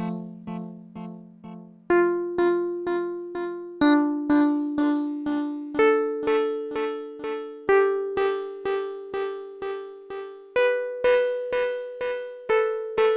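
FM synthesizer electric-piano chords played through a bit-crusher delay (Mooer Ocean Machine's Low Bit mode). A new chord comes about every two seconds, each followed by echoes about twice a second that fade away.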